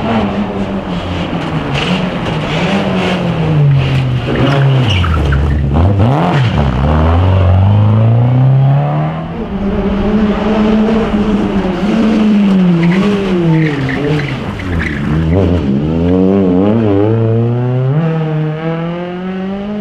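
Rally car engine running at high revs. The revs drop steeply twice as it slows for corners, and each time climb again under hard acceleration, with quick rising and falling rev swings near the end as it pulls away uphill.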